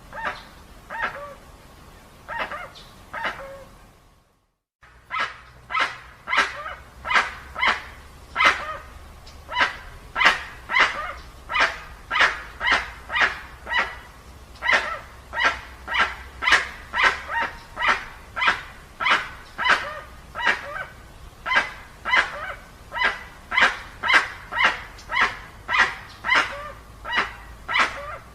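Dusky-legged guan (jacuguaçu) calling: a long series of loud, barking honks, about two a second, with a brief break about four seconds in.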